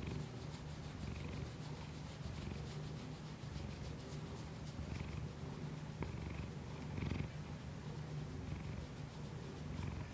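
A domestic cat purring steadily: a continuous low rumble with an even pulsing rhythm.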